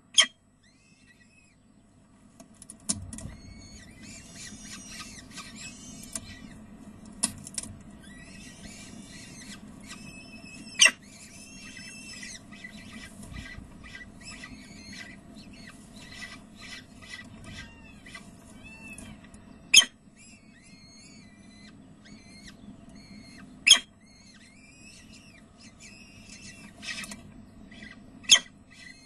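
Peregrine falcon chicks cheeping, a dense run of short high peeps that starts about three seconds in, as they beg while being fed, over a low rumble. About five loud, sharp clicks stand out through it.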